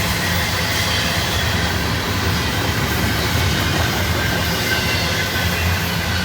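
Union Pacific intermodal freight train rolling past at track speed: a steady, loud rumble of steel wheels on rail.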